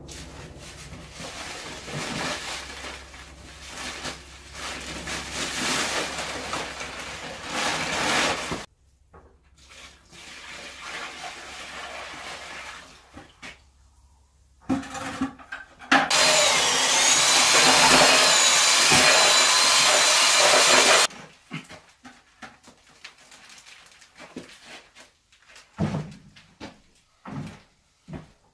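Water poured from a bucket into a rubber mortar tub for about five seconds, a loud rushing splash that cuts off abruptly. The pour is part of mixing cement mortar. Scattered knocks and scrapes follow near the end.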